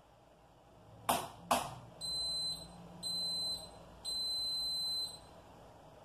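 Indesit washer-dryer giving two sharp clicks, then three high electronic beeps, the last one longest: the machine's signal that the drying cycle has finished.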